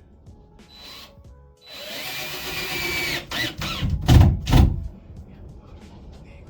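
A power drill runs for about a second and a half, driving a screw, with a steady whine. It is followed by a few loud knocks, the last two the loudest.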